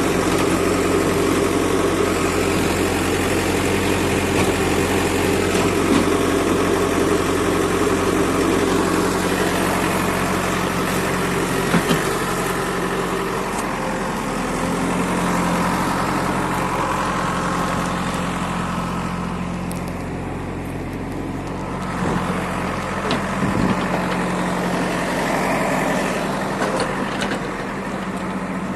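An engine running steadily at a construction site, with a few sharp knocks now and then.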